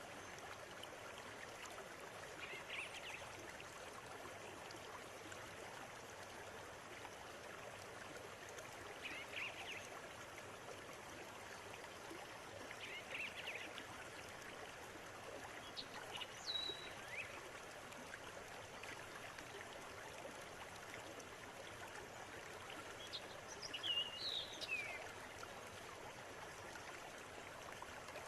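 River water running steadily over its bed, with short bird calls every few seconds and a quick flurry of them near the end.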